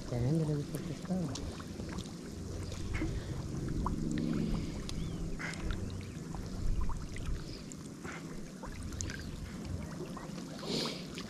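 Water sloshing and splashing as a person wades through it, with scattered small clicks and splashes.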